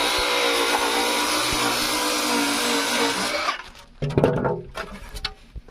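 Power saw with a wood-cutting disc running steadily with a high whine as it cuts through extruded polystyrene foam board, stopping about three and a half seconds in. A short, loud scraping noise follows about four seconds in.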